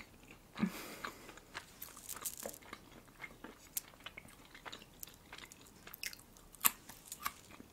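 Close-miked mouth chewing with small wet clicks and crackles, then a crisp crunch about two-thirds of the way through as a fresh cucumber slice is bitten.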